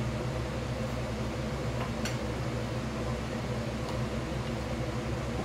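A running kitchen appliance's steady low hum, unchanged throughout, with a few faint light ticks about two seconds in and again near four seconds.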